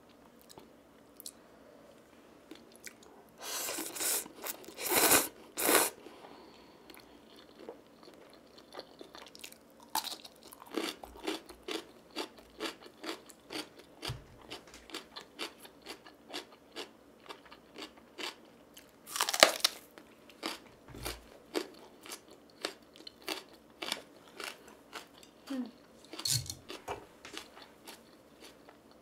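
Close-miked eating of Buldak stir-fried ramen noodles: a few loud slurps about four to six seconds in, then steady chewing with quick moist clicks a few times a second and another slurp about two-thirds of the way through.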